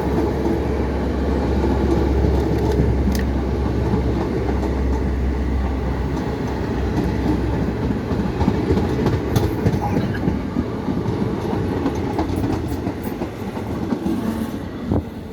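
Indian Railways express train running, its coach wheels clattering over the rail joints in a steady rumble that eases off near the end.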